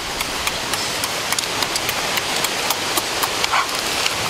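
Close-up eating sounds: crisp crunching clicks, several a second, over the steady rush of a shallow stream.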